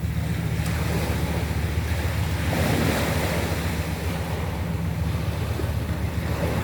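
Sea waves washing onto a pebble beach, with one wave surging louder about three seconds in. Under it runs a steady low rumble of wind on the microphone.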